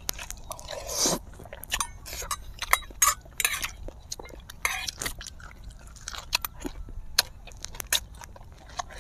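Close-miked chewing and biting of food, with irregular crunches and wet mouth sounds from two people eating.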